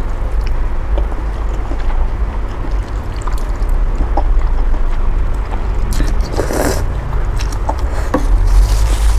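A person slurping up a mouthful of boat noodles, with a strong slurp about two-thirds of the way in and a shorter hissing one near the end, over a steady low hum and a few light clicks.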